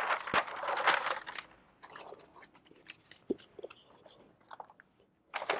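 Stiff paper rustling and crinkling as a folded paper model is handled, loudest over the first second and a half, then scattered small crackles and another rustle near the end.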